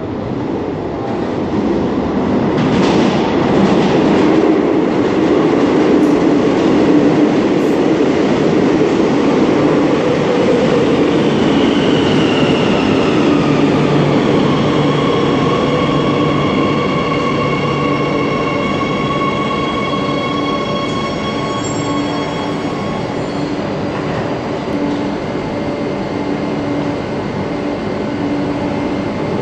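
Madrid Metro series 8400 electric train arriving at the platform. Its rumble grows for about ten seconds, then whines fall in pitch as it brakes. They settle into steady tones and a hum once it has stopped.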